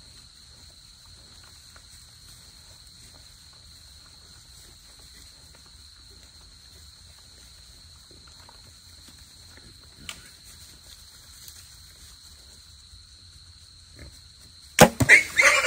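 Wild hogs feeding on bait corn: faint scattered sounds over a steady high hum. About a second before the end comes a sudden sharp crack, then loud hog squealing.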